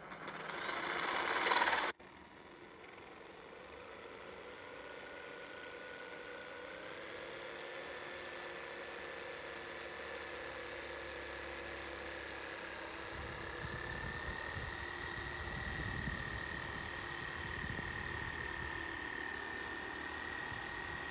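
Electric jigsaw cutting through a wooden board: a steady high motor whine that climbs slightly in pitch, with the rough noise of the blade in the wood growing louder in the later part. A short, louder burst rises at the very start and cuts off abruptly.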